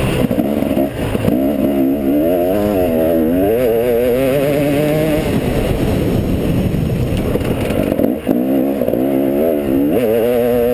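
Motocross bike engine heard from the rider's helmet camera, its revs rising and falling with the throttle through the first half, easing off in the middle, then climbing hard again after a brief drop just past eight seconds.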